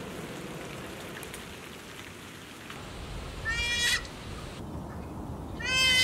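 Weka calling: two loud calls about two seconds apart, the first about three and a half seconds in and the second at the very end.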